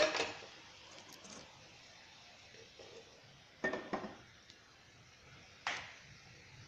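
Metal cookware clanking: a loud clatter at the start, two quick clanks a little past the middle and one more near the end.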